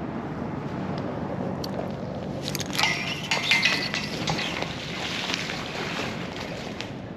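Metal clinking and clattering for about two seconds near the middle, with a brief ring, as the magnet-fishing magnet and rope are hauled up against the bridge railing. A steady low hum runs underneath.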